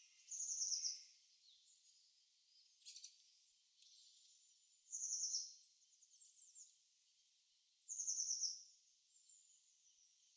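Wild birdsong from a winter-morning nature recording: three short, fast high trills, each under a second long, with fainter chirps in between.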